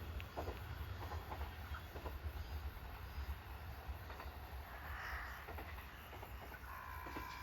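Faint low rumble of a train, with scattered light clicks.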